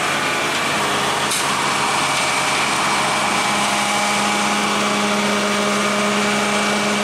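Diesel engines of Hitachi hydraulic excavators running steadily under working load, with a constant whine over the engine noise. A deeper steady note joins about three and a half seconds in.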